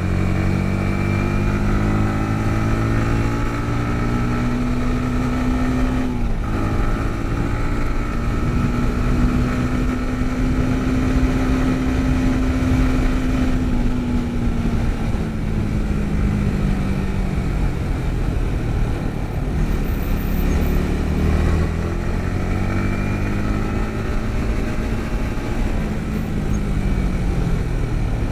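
Yamaha MT-15's 155 cc single-cylinder engine running under way. Its note climbs, drops sharply about six seconds in, holds steady, then falls away and climbs again near the end, over a steady rush of wind and road noise.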